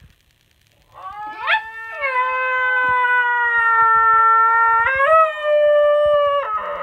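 Basenji howling in a long drawn-out yodel: a rising glide about a second and a half in, then a held note that steps up in pitch near five seconds and breaks off shortly after six seconds.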